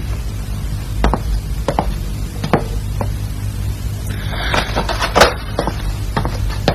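Chinese opera stage percussion: a series of sharp wooden knocks at an uneven pace over a low steady accompaniment. A brighter shimmering wash and a louder knock come a little past the middle.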